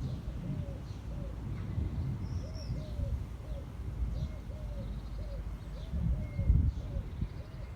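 Pigeon cooing over and over, short rising-and-falling coos in quick succession, with a few faint chirps from small birds and an uneven low rumble underneath that swells briefly near the end.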